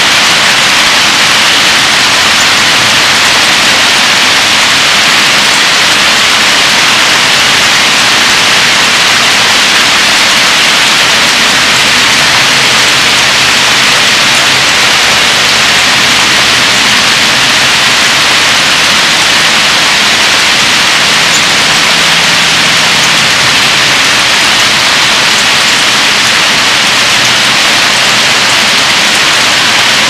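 Heavy rain pouring down, a loud, steady hiss with no break.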